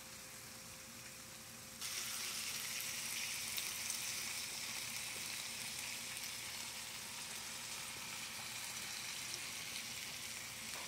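Oxtails frying in oil and sauce in a cast-iron skillet: a steady sizzle that gets suddenly louder about two seconds in and stays strong.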